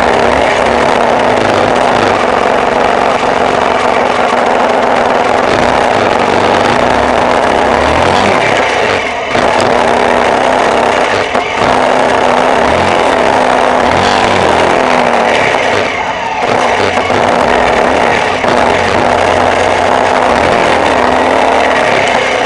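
Off-road vehicle engine running under way, with loud wind and road noise over it; the engine pitch rises and falls a few times as it changes speed.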